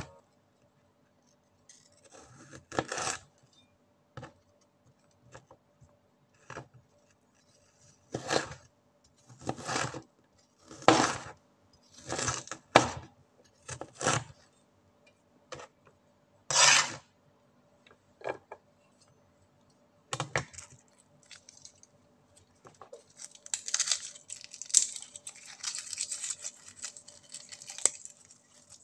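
Chef's knife cutting ginger slices into strips on a plastic cutting board: irregular sharp knocks of the blade on the board, roughly one a second. Near the end a dry crackling rustle follows as papery garlic skin is peeled off a clove.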